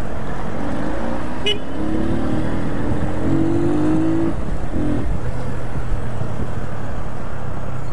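Motorcycle riding through traffic: the engine running steadily under heavy wind and road noise, with brief flat tones from other traffic around the middle.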